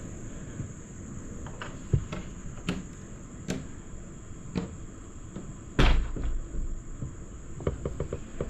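Scattered knocks and clicks of wood or household objects being moved, with one heavier knock and thud about six seconds in and a quick run of small clicks near the end, over a steady high-pitched whine.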